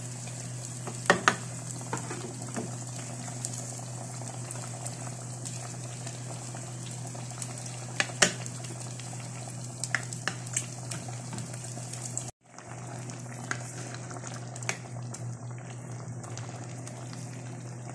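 Thick tomato salsa with potatoes and eggs simmering in a clay pot over low heat, a steady bubbling with scattered sharp clicks of a wooden spoon against the pot. The sound cuts out for a moment a little past halfway.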